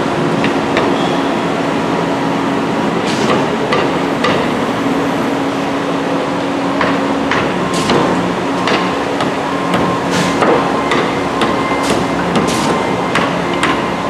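Hammer blows struck at irregular intervals, about a dozen sharp knocks, over the steady drone of diesel engines from concrete mixer trucks and a concrete boom pump running on the site.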